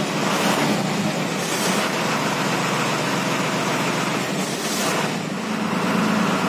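Cummins diesel engine of an MSRTC bus running steadily, heard from inside the bus. A few brief hissing swells rise over the engine hum.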